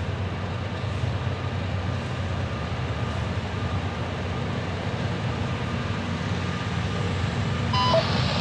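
Diesel locomotives of an approaching freight train running, a steady low rumble that grows slightly louder as the train nears.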